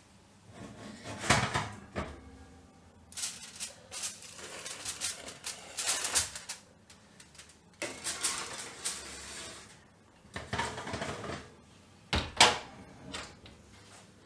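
Metal clatter and scraping as a foil-covered flan tin is set on a wire oven rack and the rack is pushed in, ending with the oven door shutting in a sharp knock near the end.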